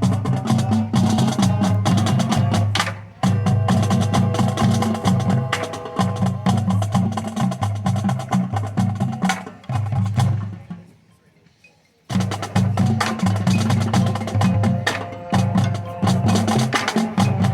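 High school marching drumline playing a dense rhythmic passage on snare, tenor and bass drums. It dies away just after ten seconds in, leaving a second and a half of near silence, then comes back in sharply at full volume.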